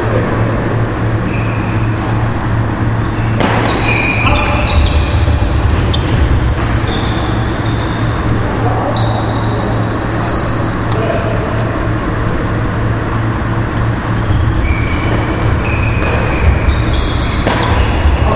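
Shoes squeaking on a wooden badminton court during a rally: many short, high squeaks. A couple of sharp racket strokes on the shuttlecock, one a few seconds in and another near the end. Under it all is a steady low hum.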